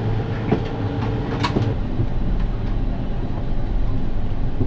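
Steady low drone inside an airliner cabin on the ground with the doors closed, from the running air-conditioning and engines. Two small clicks sound about half a second and a second and a half in.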